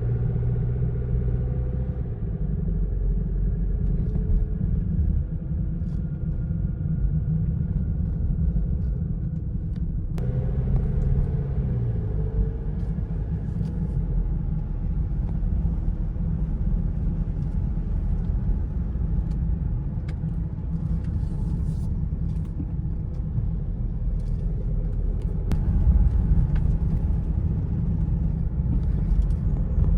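Car driving on the road: a steady low rumble of engine and tyres, with the engine note shifting about ten seconds in.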